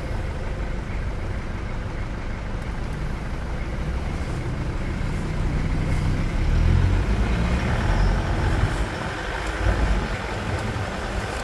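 Toyota Hilux pickup's naturally aspirated 3.0 diesel engine (5L), heard from the car behind: idling steadily, then growing louder about halfway through as it pulls away, and easing again near the end.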